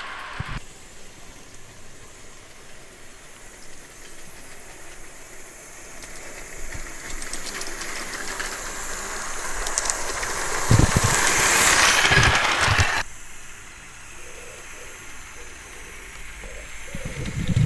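A Gauge 1 live-steam model of a GWR 14xx tank locomotive running with its train, its steam hiss growing louder and then cutting off suddenly about thirteen seconds in. A few low knocks sound near the loudest part, and a run of quick rhythmic thumps comes near the end.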